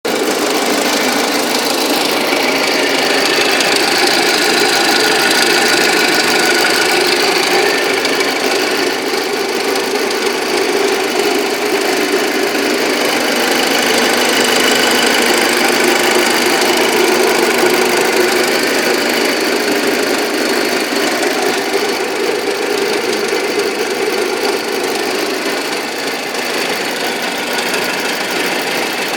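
Audi A6 engine running steadily with a knock, the sound the owner calls engine knock.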